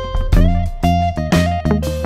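Background instrumental music with a steady beat: pitched melody notes over bass and drums.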